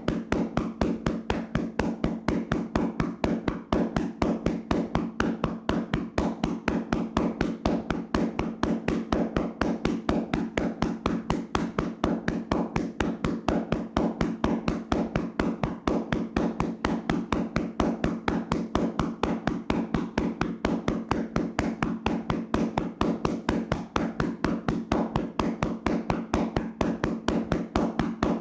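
Hands rapidly and vigorously slapping and tapping a person's body in a percussive massage, in a fast, even rhythm of about five strikes a second.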